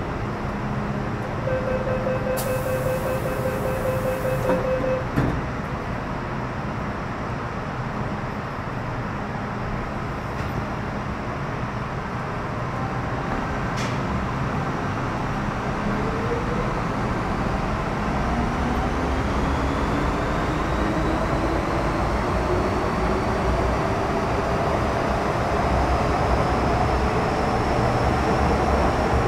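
On board a Metro-Cammell M-Train, a steady door warning tone sounds for about three seconds and ends in a thump as the doors shut. From about halfway through, the GEC GTO chopper traction equipment gives a rising whine, and the running rumble grows as the train pulls away and gathers speed.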